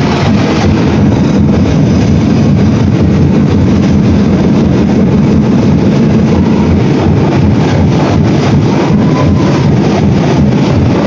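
Loud festival dance music driven by a steady pounding drum beat, played for a street-dance tribe's routine. It is recorded so loud that it sounds heavy and overloaded.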